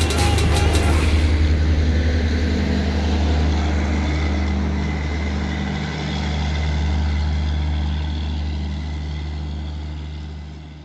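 Double-decker express passenger train rolling past at a station platform, a steady low rumble of coaches and wheels on the rails, fading near the end as the last coach draws away.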